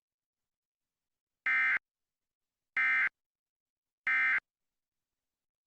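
Emergency Alert System end-of-message signal: three short, identical bursts of SAME digital data tones, about a second apart, marking the end of the alert.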